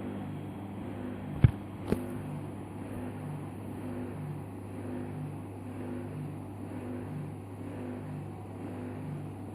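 Washing machine running with a steady low hum and a soft rhythmic pulse a little more than once a second. Two sharp knocks about one and a half and two seconds in.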